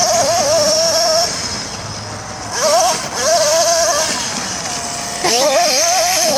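Kyosho radio-controlled monster truck's small nitro engine revving in quick bursts, its high note wavering up and down with the throttle. It drops back for a second or so after the first burst, and winds down in a falling whine about two-thirds of the way in before revving up again near the end.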